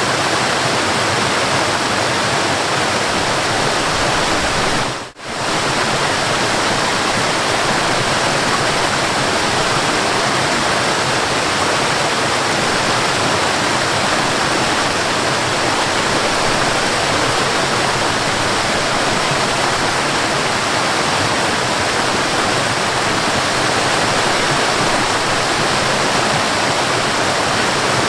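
Forest waterfall rushing steadily, a dense, even wash of falling water. About five seconds in the sound dips briefly almost to silence and comes straight back.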